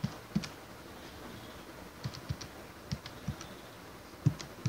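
Computer keyboard keys tapped one at a time, about nine separate keystrokes, mostly in pairs about a third of a second apart, as numbers are entered.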